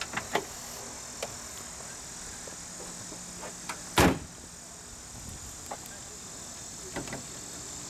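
Hood latches of a Jaguar E-Type being released: a few light clicks, then one loud clunk about four seconds in, and faint clicks near the end.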